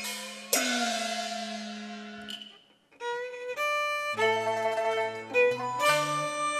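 Instrumental interlude of a Cantonese opera accompaniment band. A percussion crash about half a second in rings down, the music drops out briefly just before three seconds, then a violin-led melody over a bass line starts up.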